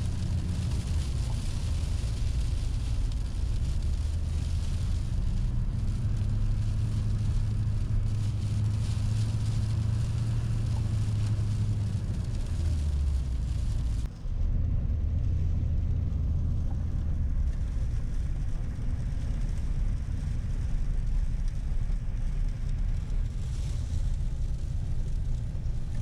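A Duramax diesel pickup's engine drones steadily with road noise, heard from inside the cab while driving. The engine note steps to a new pitch a few times.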